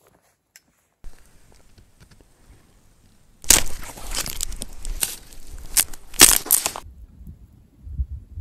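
Dry twigs and brush crunching and crackling, loud and dense for about three seconds in the middle, between quieter rustling before and after.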